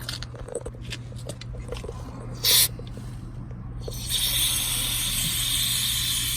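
Aerosol can of brake cleaner spraying onto rusty drum-brake parts: a short hissing burst about two and a half seconds in, then a long steady spray from about four seconds in. A few light clicks and knocks come before it.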